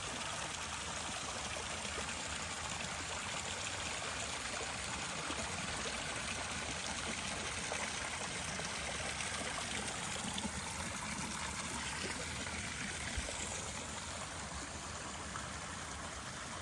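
Steady rush of running water, like a stream, with no change in level. It cuts in abruptly at the start and cuts off abruptly at the end.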